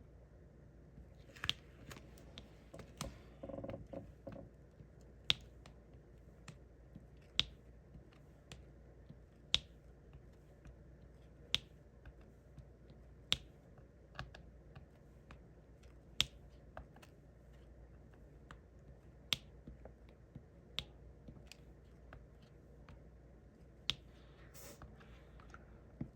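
Diamond painting drill pen pressing resin drills onto the sticky canvas one at a time: a sharp pop about every two seconds. A brief rustle of handling comes about three seconds in.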